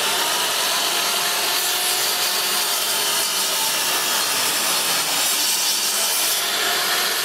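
Power miter saw cutting through a wooden board: a loud, steady saw noise that starts and stops abruptly.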